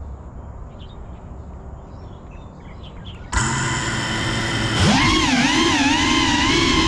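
Faint outdoor background with a few bird chirps, then about a third of the way in the loud, steady whine of a small FPV quadcopter's brushless motors and propellers cuts in. A second or so later the whine sweeps up in pitch and wavers up and down with the throttle as the drone flies.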